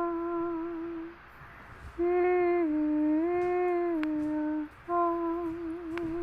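A slow, hum-like melody in one voice of long held notes, with short pauses between phrases. The middle phrase steps down and back up in pitch, and the last note wavers slightly.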